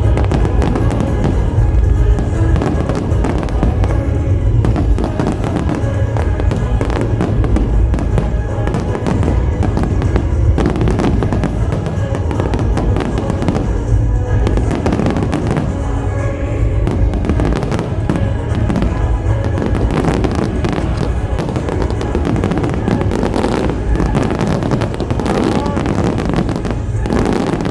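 Dense barrage of fireworks bursting, many reports in quick succession over a continuous low rumble, with music playing underneath.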